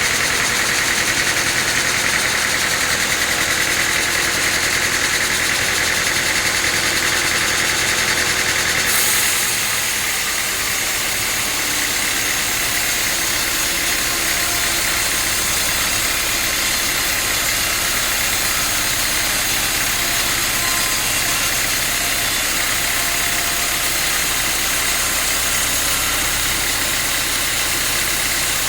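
Sawmill machinery running steadily while sawing teak, with a slight change in its sound about nine seconds in.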